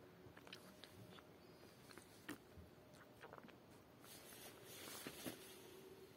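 Near silence: faint room tone with a few soft clicks, one a little louder about two seconds in, and a faint hiss swelling in the second half.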